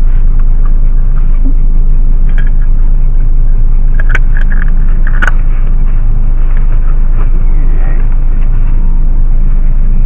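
Car engine idling, heard from inside the stationary vehicle's cabin as a loud, steady low hum. A few brief clicks come in about four to five seconds in.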